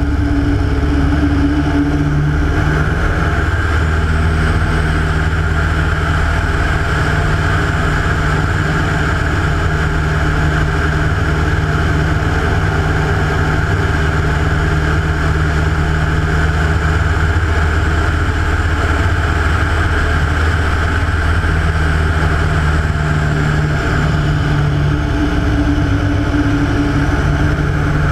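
Rotec R3600 nine-cylinder radial engine of a Hatz biplane running steadily in flight, with propeller and wind noise loud on a wing-strut-mounted camera. The engine note shifts a little about three seconds in and again near the end.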